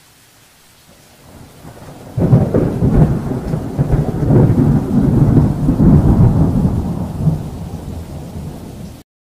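Thunder rumbling over a faint rain-like hiss: it swells from about a second in, breaks loud about two seconds in, rolls on and tapers off, then cuts off abruptly near the end.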